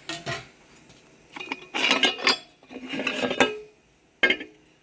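Steel parts from a 4L60E automatic transmission, the planetary gears and drive shell, being handled and turned over: metal clinking and scraping in two short clattering bursts, with one sharp clink near the end.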